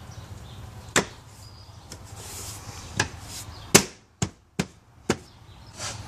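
Plastic dash trim panels being pushed and smacked into place by hand, their pop-in clips snapping home. There are six sharp knocks, irregularly spaced, the loudest a little before the four-second mark.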